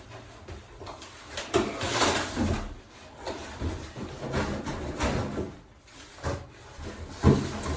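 Cardboard box and packaging being handled as a boxed mini oven is pulled out: irregular scraping and rustling with a few knocks, the sharpest near the end.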